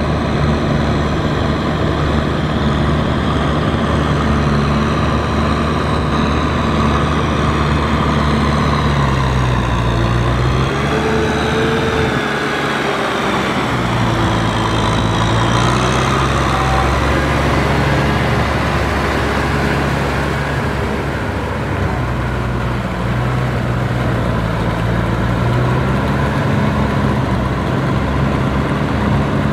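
Kubota M6040SU tractor's four-cylinder diesel engine running under load while pulling a rotary tiller through deep mud. Its note sags and recovers about a third of the way through, and again later on.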